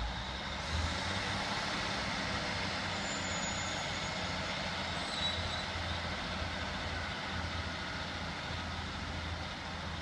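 Sprinter-type diesel multiple unit's underfloor diesel engine powering up as the train pulls away from the platform, a steady low drone over a rushing mechanical noise. The sound grows louder right at the start and then holds.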